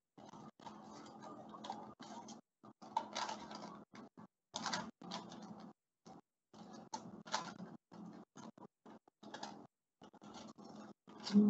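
Small scissors cutting through a sheet of paper: an irregular run of snips and paper rustling, with the sound cutting in and out between the strokes.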